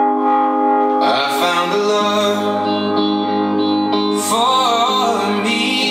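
A song played from a phone through a Bose SoundLink Revolve+ Bluetooth speaker. It opens on a held chord, a singing voice comes in about a second in, and a bass line joins about a second later.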